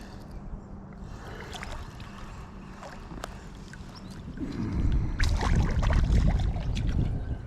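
Steady low hum of a boat's motor with a faint steady tone; a little over halfway through, a much louder low rumble with scattered clicks and knocks joins in.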